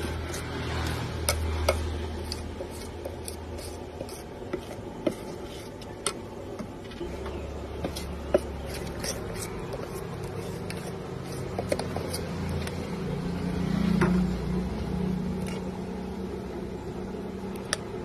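A metal spoon stirring thick batter in a steel pot, with scattered taps and scrapes against the pot's side, over a steady low background hum.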